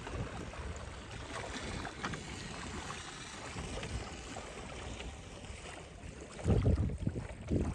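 Lake water sloshing and splashing around plastic barrel floats and a person's legs. Wind buffets the microphone in two heavy gusts near the end.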